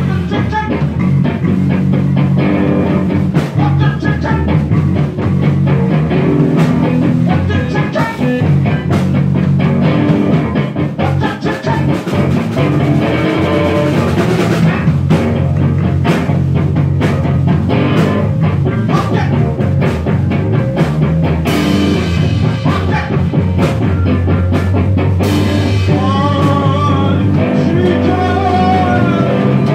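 Rock trio playing loudly: electric guitar, drum kit and electric bass, with drum hits and a heavy bass line.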